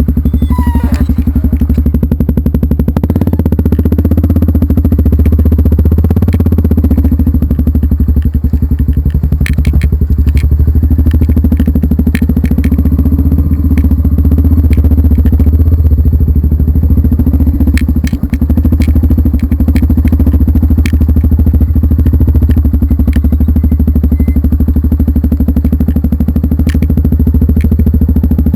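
A vehicle engine running steadily under way, a loud low drone, with scattered knocks and rattles throughout.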